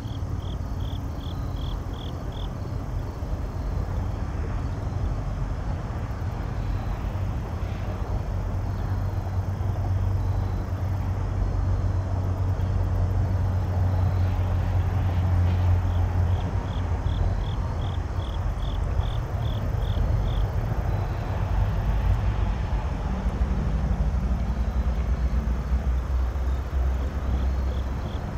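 Diesel locomotives hauling a freight train, a steady low engine rumble that grows louder toward the middle and then eases. Short runs of rapid insect chirps, about three or four a second, come and go over it.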